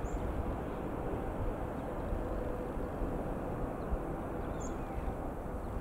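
Boeing 787-8 Dreamliner's jet engines giving a steady, distant rumble as the airliner rolls out along the runway after landing. A bird chirps briefly twice, high above it.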